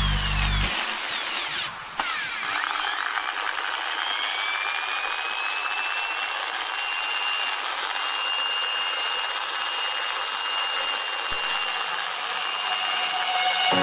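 Electric drill switched on about two seconds in, its motor whine rising to speed and then running steadily at a high pitch.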